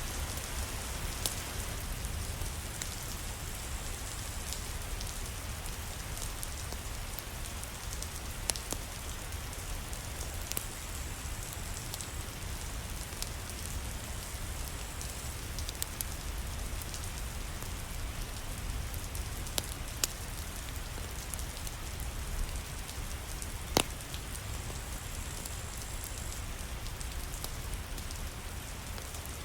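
Steady rain hissing, with a few scattered sharp pops or ticks; one louder pop comes about 24 seconds in.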